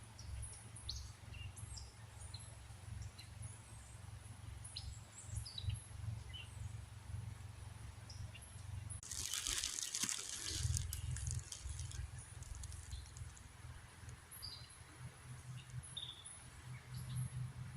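Outdoor ambience at a creek: small birds chirping now and then over a low rumble of wind on the microphone, with a brief rush of noise about halfway through.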